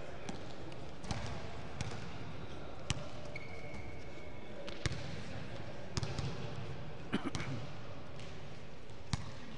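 Basketballs bouncing on a gym floor, sharp irregular thuds about once a second as players dribble and pass, with a brief high steady squeak about three and a half seconds in.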